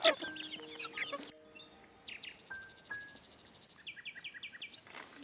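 Small birds chirping and calling, with a quick buzzy trill about two seconds in and a run of short, evenly repeated chirps near the end.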